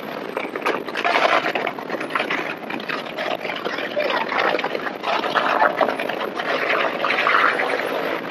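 Heavy surf breaking and gusty wind on the microphone, the loudness rising and falling unevenly, with scattered voices of a crowd in the background.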